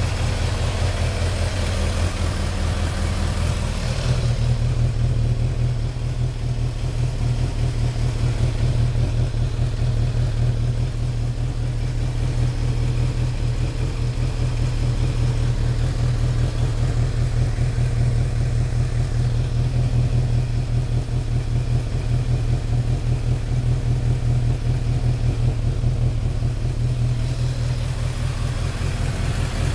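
Kawasaki GPZ900R's inline-four engine idling steadily through an aftermarket Tsukigi exhaust. About four seconds in, the low exhaust note grows stronger.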